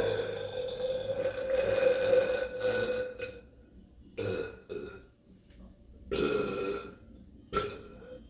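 A person burping deliberately. One long, drawn-out burp holds a steady pitch until about three seconds in, then a string of shorter burps follows.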